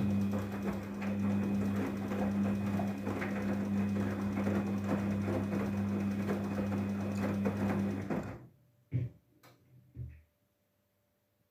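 Daewoo DWD-FT1013 washing machine running its rinse: the motor hums steadily under a busy rattle, then stops about eight seconds in, followed by a couple of short knocks.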